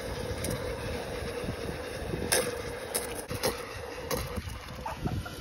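Steady hum and rush of an electric air blower running continuously, with a few short knocks about halfway through.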